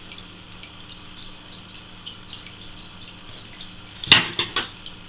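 Steady faint trickling and dripping of water. About four seconds in comes a short clatter of three sharp clicks.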